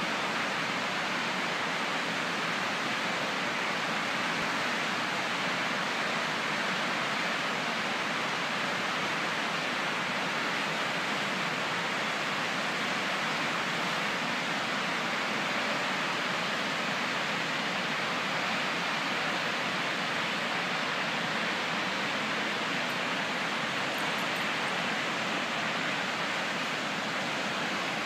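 Great Falls of the Potomac River: whitewater cascades and rapids rushing over rock, a steady, unbroken rush of water.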